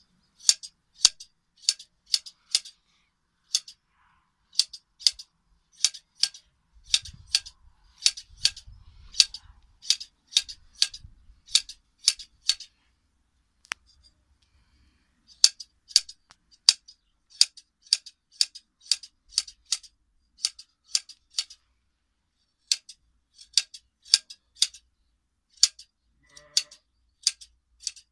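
Hand blade shears snipping through a sheep's fleece during hand shearing: crisp, sharp snips in quick runs of two to four, roughly two a second, with a pause of a couple of seconds around the middle.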